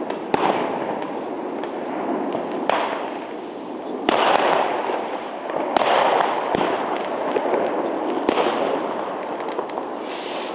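Fireworks going off: a dense, continuous crackle that swells and fades, with a sharp bang every second or two.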